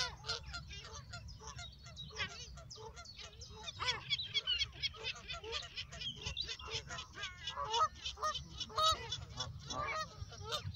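Geese honking, many short calls one after another throughout, over a steady low rumble.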